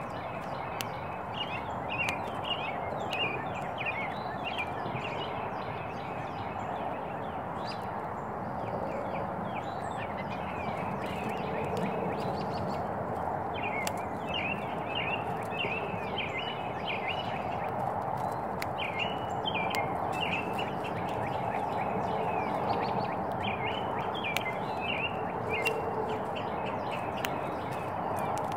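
Small birds chirping in clusters of quick, short chirps over a steady background hiss, with scattered light clicks.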